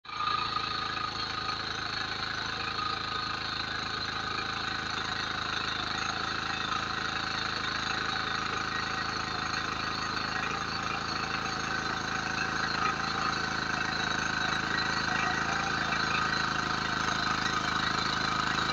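Small engine of a walk-behind mini power tiller running steadily as its rotating tines churn the soil between crop rows.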